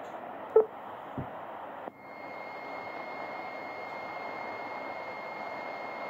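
Sony ICF-7600D shortwave radio receiving a broadcast: steady hiss with a short beep about half a second in. About two seconds in the sound changes abruptly to a different hiss carrying a thin, steady high whistle.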